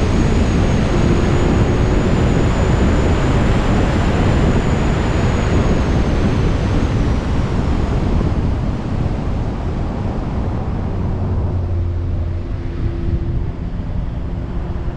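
A 2019 Audi S3 and a Ford F-150 Lightning launching in a drag race: a loud rush of car noise, with a thin high whine over the first seven seconds, that eases off after about eight seconds.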